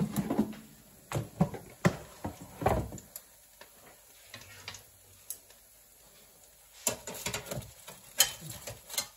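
Cosori air fryer basket drawer pulled out and set down, with a series of knocks and clatter over the first three seconds. About seven seconds in comes a cluster of metal clicks as a wire pan gripper is clamped onto the small metal pan inside the basket.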